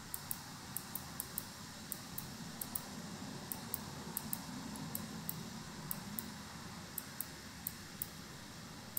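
Faint, irregular clicking, about two clicks a second, from the pointing device used to handwrite words on screen, over a faint low background hum.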